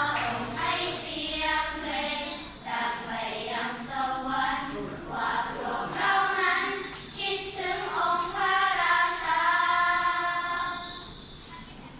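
Children's choir singing together, the last held keyboard notes dying away about a second in so that the singing goes on unaccompanied; the singing stops about a second before the end.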